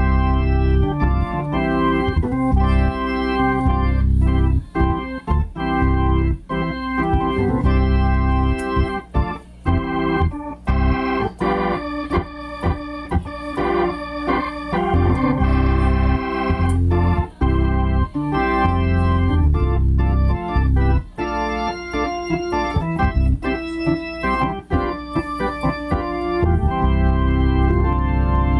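Two-manual electric organ played with both hands: held chords that change every second or two over low bass notes, with brief breaks between phrases.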